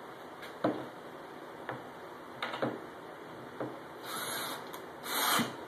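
Wooden knocks as a plywood fence strip is handled and set in place on the jig, then a cordless drill drives a screw into it in two short bursts near the end.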